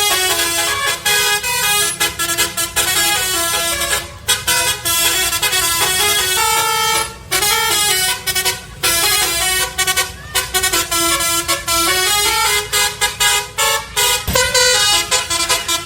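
A Hino truck's telolet horn, a multi-trumpet musical air horn, playing a quick tune of short stepped notes, with a few brief pauses between phrases.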